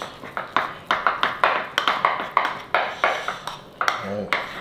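A spoon stirring thick cream of rice in a bowl, clinking and scraping against the bowl about four or five times a second. A short voiced sound comes near the end.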